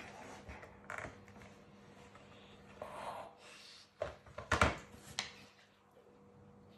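Dogue de Bordeaux handling a knotted chew bone on a wooden floor: a series of knocks and scrapes as the bone is pushed and bumped against the floorboards, loudest about four and a half seconds in, then quiet.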